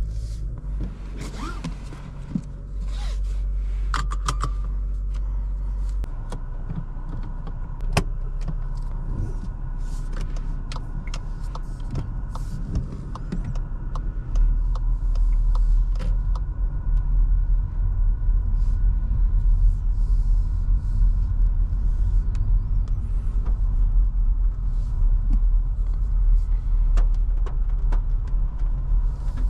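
Inside the cabin of a Skoda Scala with its 1.5 TSI four-cylinder petrol engine, pulling away and driving on a wet lane. Engine and road noise make a low rumble that grows louder about 6 seconds in and again about 14 seconds in, with scattered clicks and ticks over it.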